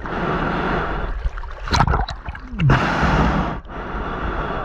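Water sloshing and gurgling around a camera held at the waterline, with a loud gasping breath with a falling pitch about two and a half seconds in.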